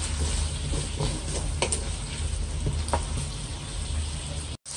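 Chicken wings and potato chunks sizzling in a nonstick wok while a wooden spatula stirs and tosses them, with a few light knocks and scrapes of the spatula against the pan. The sound cuts out for a moment near the end.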